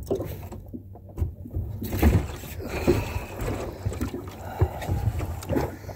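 Irregular knocks and bumps of handling in a small fishing boat, busier and louder from about two seconds in.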